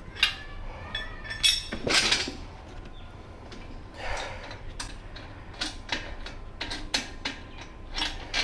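Metal tire irons clinking and knocking against a motorcycle wheel rim, with a few short scrapes, as the tire is worked off the rim by hand. The knocks come irregularly, several in quick succession.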